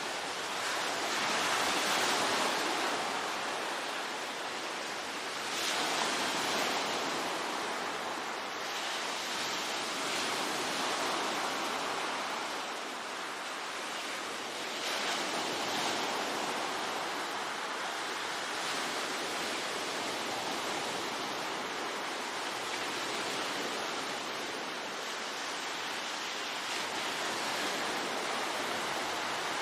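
Ocean waves breaking on the shore in a continuous wash of surf, swelling and easing every few seconds.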